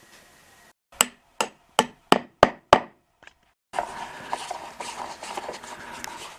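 Six quick, sharp hammer blows on wood, about three a second, then a faint seventh tap. After a short gap, a continuous rough scraping noise with small clicks takes over.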